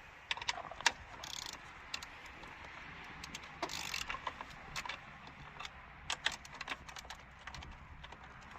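Hand tools working loose a power steering reservoir's 10 mm bolts and spring-loaded hose clip: irregular metallic clicks, taps and clatter, with two brief rasping bursts about a second and a half and about four seconds in.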